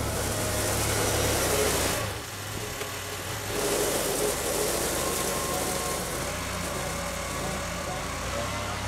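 Compact farm tractor's engine running at low speed as the tractor drives past at close range, with a steady hiss over it.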